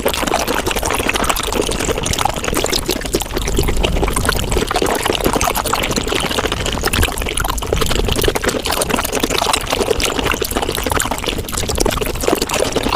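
Wet chewing and slurping of raw shrimp, sped up five times into a dense, continuous stream of tiny clicks and smacks that sounds like pouring liquid.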